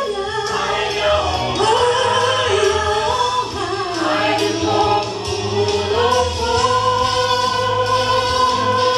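Mixed church choir singing a Christmas cantata in several voices, settling into a held chord for the last three seconds or so.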